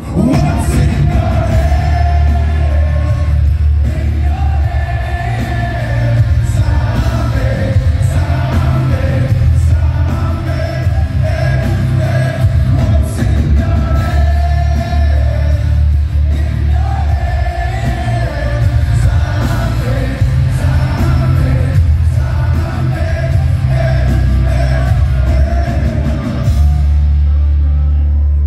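Live rock band playing, with a male lead singer over electric guitars and drums; loud and heavy in the bass.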